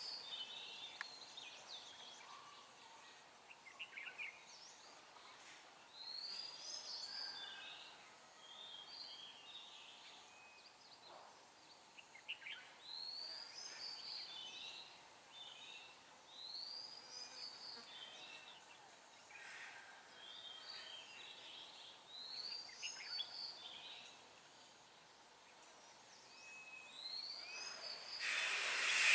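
Red-whiskered bulbuls singing, one short warbling phrase every few seconds, each opening with a ringing arched note. A loud hiss rises suddenly right at the end.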